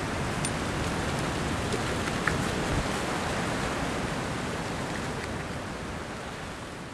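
Steady rushing wind noise on the camcorder microphone, with a few faint clicks and a small knock a little over two seconds in. The noise fades down near the end.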